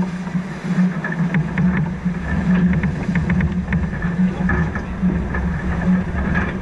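Steady rush of wind and water from a sailing catamaran under way, picked up by a camera at the bow, with a few light ticks around the middle.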